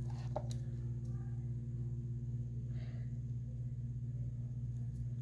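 Steady low electrical or ventilation hum in the room, with a few faint small clicks and rustles of handling.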